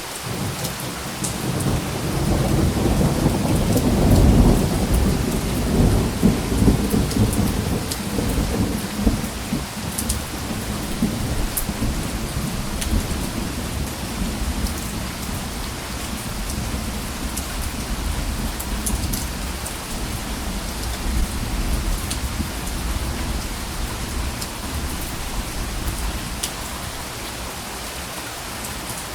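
Steady rain falling with scattered drop ticks. A long roll of distant thunder builds from about a second in, peaks a few seconds later, and rumbles away slowly over the rest.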